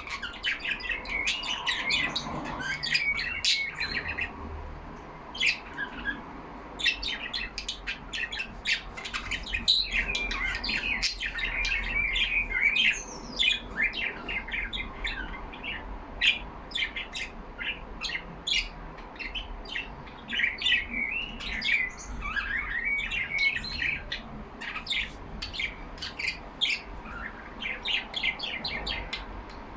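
Several pet budgerigars chirping and warbling together in a steady, busy chatter of short high notes.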